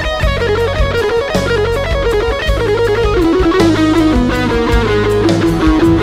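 Electric guitar played through a Boss OS-2 overdrive/distortion pedal and RV-6 reverb pedal, picking a melodic lead line of quick single notes. It plays over a backing track with drums and a steady bass.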